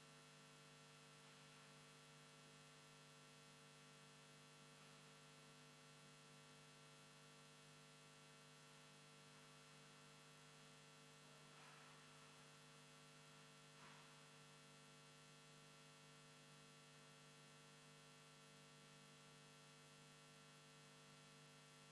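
Near silence with a faint, steady electrical hum. Two faint brief sounds come about twelve and fourteen seconds in.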